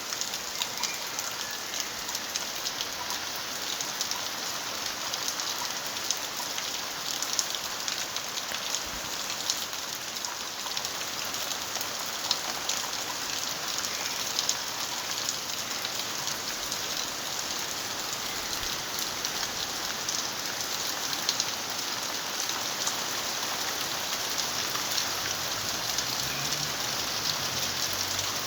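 Steady rain falling, a constant hiss with many individual drops pattering and ticking on surfaces.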